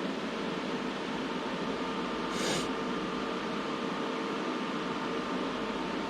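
Steady mechanical hum and hiss, with a brief louder hiss about two and a half seconds in.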